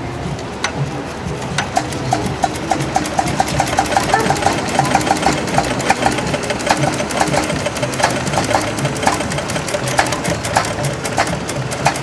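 Old Bessemer vertical stationary gas engine, started by spinning its flywheel by hand, catching about a second and a half in. It then runs with a rapid, even train of sharp clicks over a pulsing low beat. It has just had a new spark plug fitted after hard starting.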